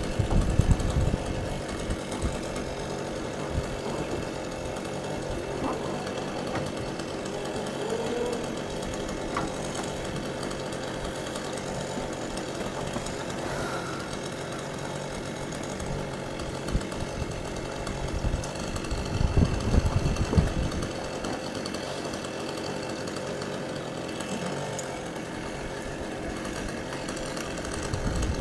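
A chainsaw running steadily at idle up in the tree, with a few louder low rumbles just after the start, about two-thirds of the way through and near the end.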